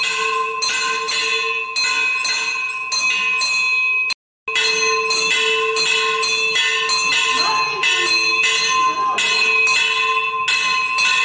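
Temple bells ringing continuously in a quick, even rhythm of about three strikes a second, their tones sustained between strikes. The ringing cuts out briefly about four seconds in.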